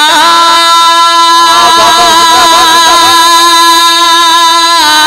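A man singing a naat, holding one long drawn-out note through a microphone, moving to a new pitch near the end.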